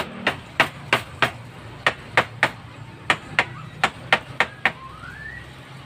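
Hammer striking a wood chisel into the timber of a boat frame: about fourteen sharp taps in quick runs of two to five. A short rising whistle follows near the end.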